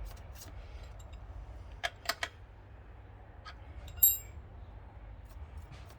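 Metal hand tools on the motorcycle's chain adjuster: a few light clicks about two seconds in, then one ringing metallic clink about four seconds in, over a faint low hum.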